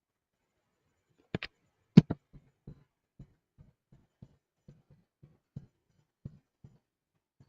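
A series of light taps or knocks. Two sharp ones come about a second and a half in and the loudest about two seconds in, then fainter taps follow roughly every half second.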